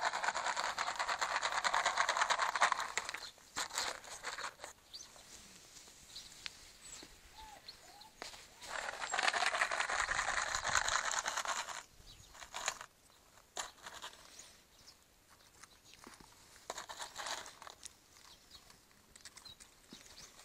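Rustling, crinkling noise in two long stretches of about four and three seconds, with quieter scattered rustles and ticks between and after.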